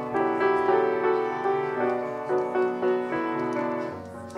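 Piano playing an instrumental interlude between sung verses: a flowing melody of several notes a second over held chords, growing softer near the end.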